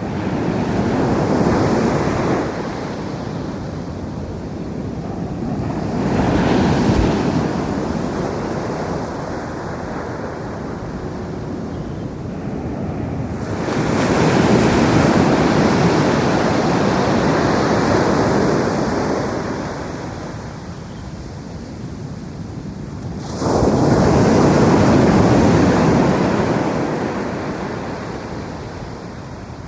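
Ocean waves breaking on a beach: four surges of surf that swell and fade, the longest lasting about six seconds in the middle, with a steady wash of surf between them.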